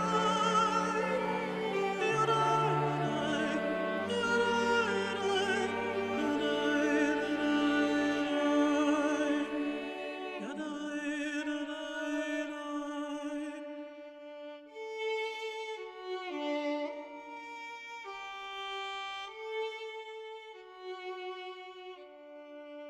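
Background music of bowed strings, violin and cello, playing slow, held notes with vibrato. It is fuller for the first ten seconds or so, then thins to single sustained notes.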